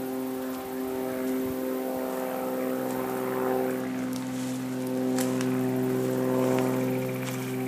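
A steady drone at one fixed pitch, like a motor running at constant speed, with light crackles of footsteps through dry leaves and brush in the second half.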